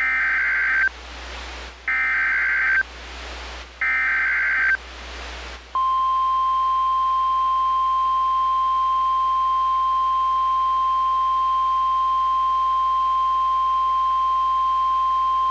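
Emergency Alert System SAME header: three screeching digital data bursts, each about a second long and about two seconds apart, encoding a Hazardous Materials Warning. After a short hiss comes a steady single-pitch attention tone of about 1 kHz, held for about ten seconds.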